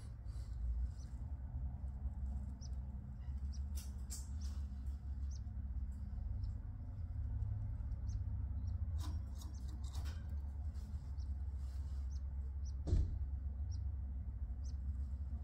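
Faint, short high cheeps from canaries scattered throughout, over a steady low hum, with a few soft clicks and one sharper knock about thirteen seconds in.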